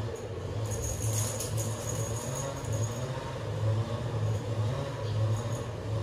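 Cat teaser toy jingling and rattling in light, irregular bursts as kittens bat at it, with a low pulsing hum underneath.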